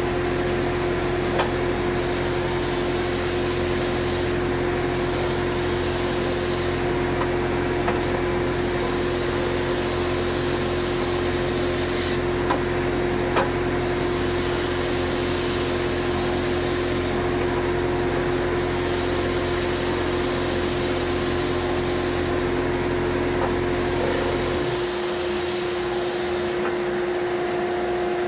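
Electric power sander running steadily on wood, with a rasping hiss that swells and fades every couple of seconds as the workpiece is pressed to the abrasive in repeated passes. A deeper hum under it cuts off about 25 seconds in.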